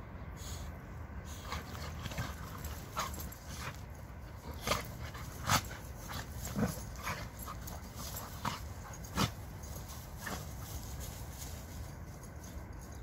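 Two dogs play-fighting, with a dozen or so short, sharp dog vocalisations spread through, loudest around the middle.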